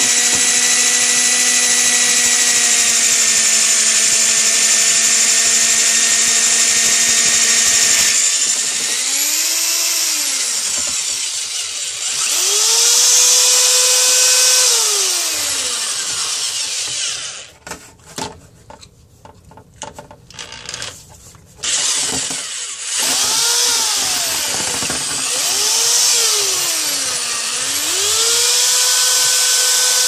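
Power drill spinning a rotary dryer-vent brush on a fiberglass rod inside the vent pipe. The motor whine holds steady, then repeatedly slows and speeds up in gliding pitch. It stops for a few seconds past the middle, with a few clicks, then runs up again and settles into a steady whine.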